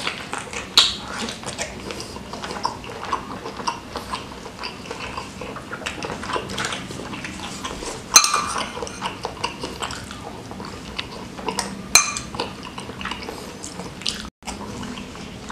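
Eating up close: chewing and wet mouth sounds from a meatball-stuffed squid and spicy seblak, with sharp clinks of a metal spoon and fork against ceramic bowls. The loudest clinks fall a little after a second in, about eight seconds in and around twelve seconds.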